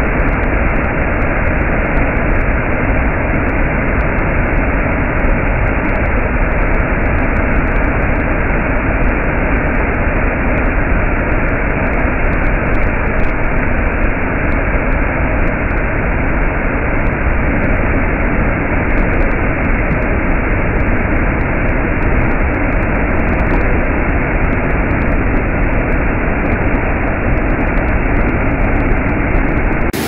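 Fifteen-metre mountain waterfall: a loud, steady rush of falling water.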